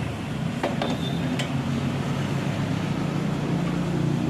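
An engine idling steadily, with a few light clicks and taps about a second in.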